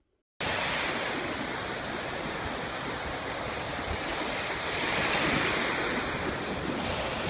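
Surf: waves breaking and washing up on a sandy beach, a steady rush of water that cuts in suddenly just after the start.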